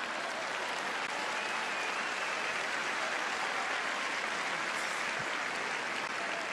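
Large audience applauding steadily, an applause break after a comedian's punchline.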